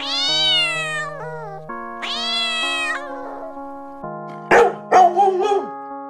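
A kitten meowing twice, each meow long and drawn out, rising then falling in pitch, over background keyboard music. About four and a half seconds in, a small dog barks several times in quick succession.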